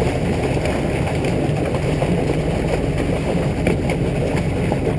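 Steady rushing and splashing of water as a fish-stocking truck's discharge pipe pours water and trout down the bank into the lake, over a low steady drone.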